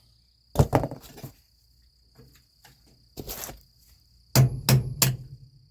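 Metal-on-metal clinks and clanks from working a snap ring off a semi-trailer's S-cam brake shaft with snap ring pliers: a few quick clicks about a second in, a short rasp past the middle, and three sharp clanks in quick succession near the end. A steady high cricket chirr runs underneath.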